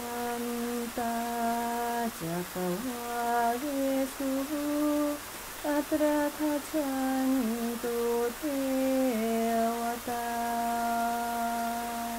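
A single woman's voice slowly intoning a melody in long held notes that step up and down in pitch, with a few brief breaks.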